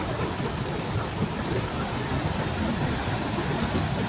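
Ocean surf breaking and washing in a steady rush, with wind rumbling on the microphone.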